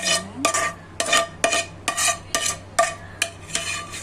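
Metal utensil stirring and tossing food in a wok, striking the pan in a quick rhythm of about two or three ringing clangs a second.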